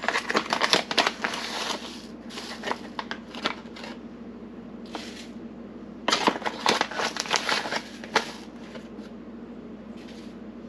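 Coffee bag crinkling and rustling as it is handled and opened, in two bursts: one at the start and another about six seconds in, with a few single crackles between. A steady low hum runs underneath.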